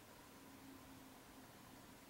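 Near silence: faint steady hiss of room tone, with a faint low hum.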